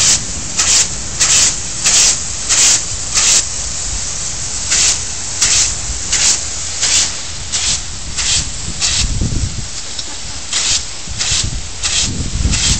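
Water jetting from an open fire hydrant's side outlet with a steady hiss, broken by loud splashy spurts about every two-thirds of a second as a dog snaps at the stream.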